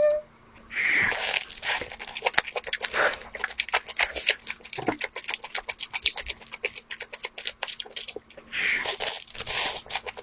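Close-miked mouth sounds of a person eating lobster: quick wet chewing and lip-smacking clicks, with two longer rushes of noise, about a second in and near the end.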